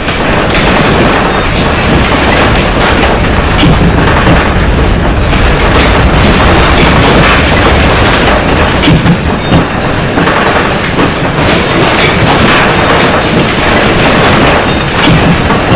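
Loud, continuous rumbling noise with no clear tone or rhythm, an explosion- or eruption-style sound effect.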